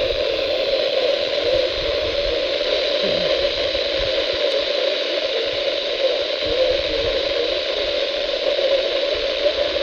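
Steady radio static: a weather-radio receiver giving out hiss with no programme audible.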